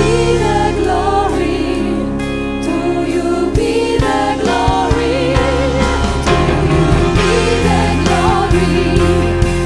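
Worship band playing a contemporary Christian worship song, with sung vocals over sustained chords and a steady beat.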